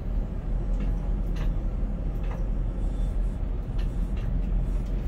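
Steady low rumble of a ship-to-shore container crane at work, heard inside the operator's cab as the hoist lowers the spreader, with a few faint clicks and rattles now and then.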